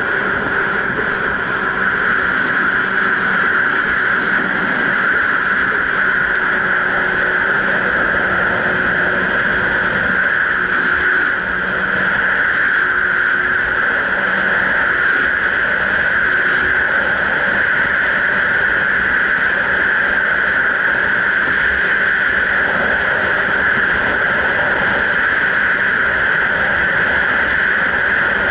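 Jet ski running steadily at speed, heard from on board as an even, high-pitched drone over the rush of water.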